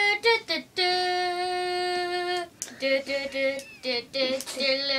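A child singing a short tune: a long held note, then a quick run of short notes, as the opening jingle of a make-believe news show.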